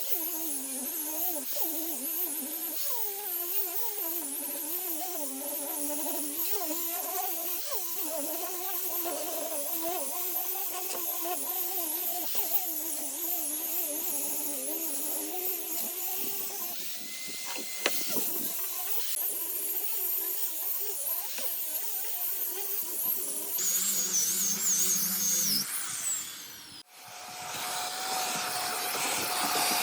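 Power tool motor running, with a whine that wavers in pitch as the tool is worked. Near the end the sound changes, cutting out briefly before a steadier whine with a single held tone.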